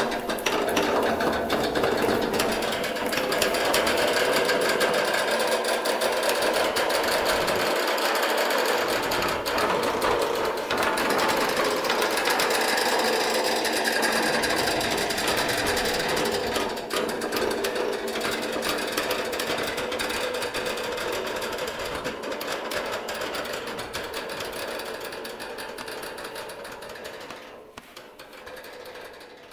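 Dense, rapid machine-like rattling and clicking from a live experimental sound performance. It runs on steadily, then fades out over the last few seconds.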